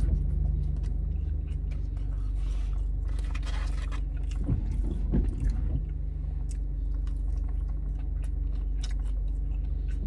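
Steady low hum of a car's idling engine heard inside the cabin, with a man chewing a bite of breaded chicken strip: scattered small crunches and mouth clicks.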